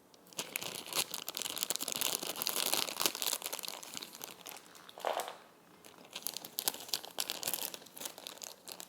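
Plastic packaging crinkling and rustling, with scattered small clicks, as parts are handled. It is dense for the first few seconds and thins out later.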